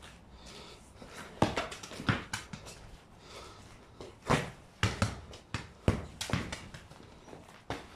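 A football being kicked and bouncing on a concrete pavement: about a dozen sharp, irregular thuds, thickest from about four to seven seconds in.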